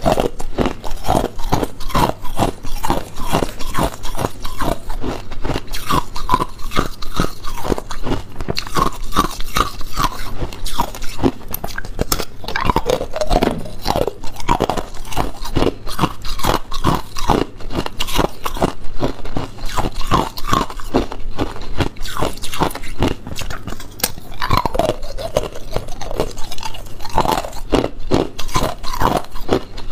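Ice being bitten and chewed close up, a continuous run of loud crunches, a few a second.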